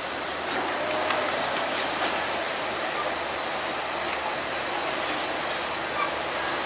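Bulldozer working: a steady clatter and grind of steel crawler tracks with short high squeaks, over a diesel engine.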